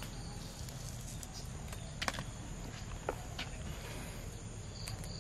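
A few small sharp cracks as the charred bamboo tube of khao lam is peeled open, over a quiet rural background with faint insect chirping.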